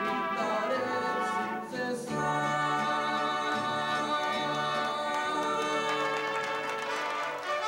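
A male mariachi singer singing with held notes, accompanied by a mariachi band of violins and guitars.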